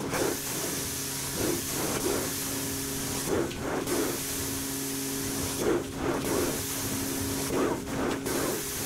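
Carpet extraction wand drawn across carpet: a steady suction and spray hiss over a constant machine hum. The hiss breaks off briefly about every two seconds between strokes.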